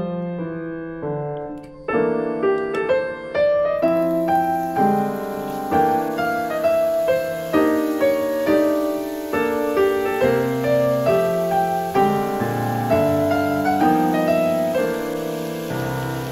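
Background piano music: a melody of single notes over lower chords, sparse for the first couple of seconds and fuller after.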